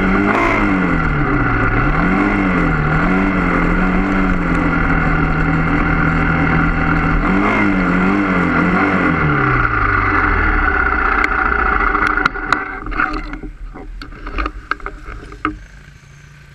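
Trail motorcycle engine running on a dirt road, its revs rising and falling a few times, then holding steady before dropping away as the bike slows. About three-quarters of the way in the engine sound stops, and scattered sharp clicks and knocks follow.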